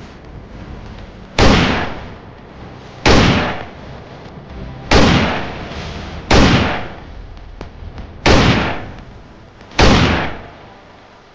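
Six gunshot sounds, one every second and a half to two seconds, each a sharp bang that dies away over about half a second.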